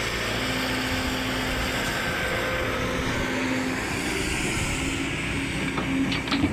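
A motor vehicle running steadily, a constant rushing noise with a faint steady hum in it; a few sharp clicks come near the end.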